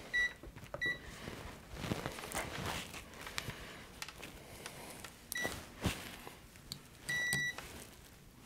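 Multimeter continuity beeper sounding four times: three short beeps and a longer beep near the end, as the probes touch pads on a circuit board being checked for a short.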